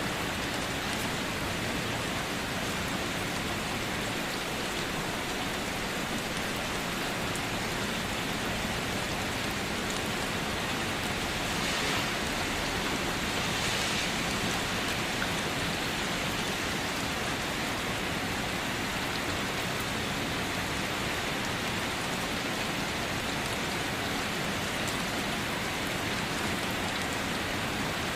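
Steady rain falling, a dense even hiss of drops on surfaces, swelling slightly about halfway through.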